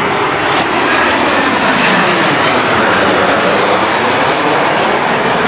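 Jet airliner passing close by as it comes in to land, its engine noise loud and rushing, with sweeping tones that rise and fall as it goes past.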